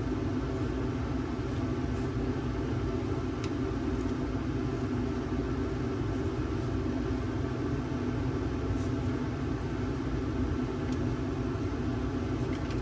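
Steady machine hum with a low rumble, unchanging throughout.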